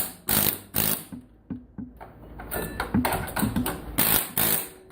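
Pneumatic air chisel (air hammer) fired in short bursts against an electronics circuit board, knocking components off, about six brief rattling blasts with a few small clicks in a pause between them.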